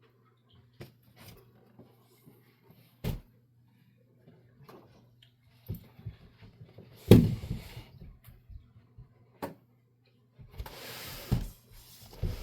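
Unpacking handling sounds: scattered clicks and knocks of cardboard and packing being moved, with one loud thump about seven seconds in and a stretch of rustling packaging near the end, over a faint steady low hum.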